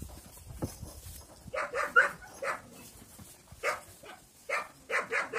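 Central Asian Shepherd dog barking: about eight short barks in uneven bursts, starting about a second and a half in.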